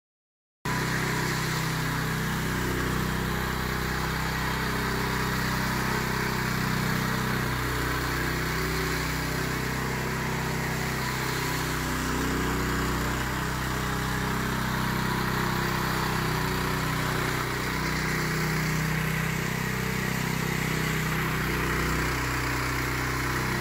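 Small gasoline engine of a walk-behind power trowel running steadily as its rotating blades finish a fresh concrete slab; it cuts in suddenly within the first second.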